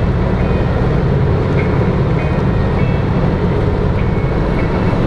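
Steady road and engine noise inside a car cabin at freeway speed, a dense low rumble that holds level throughout.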